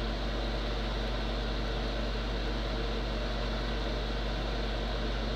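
Kotto desktop fume extractor's 120 mm AC axial fan running steadily, drawing soldering smoke through its foam filter: an even rush of air over a low hum.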